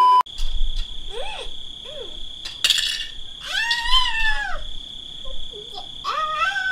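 Insects keep up a steady high-pitched chirring, while a woman makes several short, high-pitched whimpering sounds, the longest rising and falling about four seconds in. A test-pattern beep cuts off at the very start.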